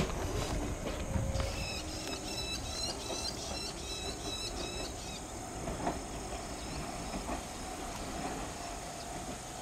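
Iga Railway train pulling away from the station, its low rail running noise going on at a steady level. For a few seconds near the start a high chirping repeats about two or three times a second, then stops.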